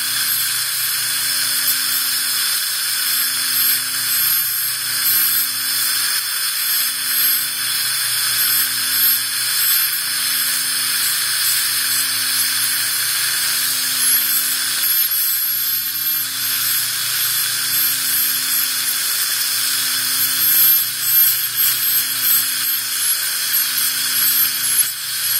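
Ultrasonic dental scaler running against the tongue side of the lower front teeth as it chips off tartar, a steady high-pitched hiss from the vibrating tip and its water spray. A faint low hum pulses underneath about every two seconds.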